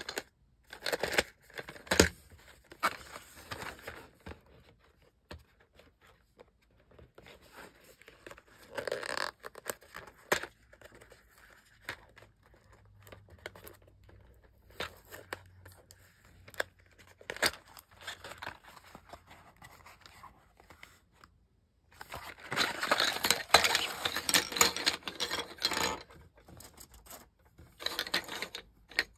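Cardboard box and bamboo drinking straws being handled: scattered taps, clicks and short scrapes of card and straws. About three-quarters of the way through comes a louder stretch of several seconds of dense scraping and clatter, as the straws come out onto the table.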